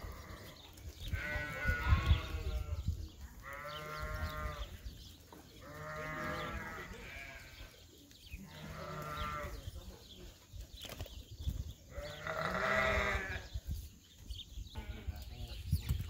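Lambs bleating: about five long, separate bleats a couple of seconds apart.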